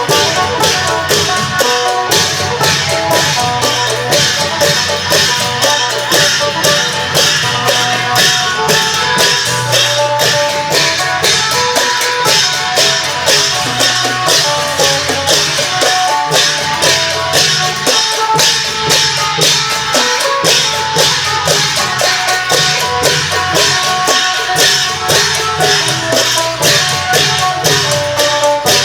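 Isan klong yao long-drum band playing with a phin, the plucked lute carrying a melody of quick short notes over a fast, steady percussion beat.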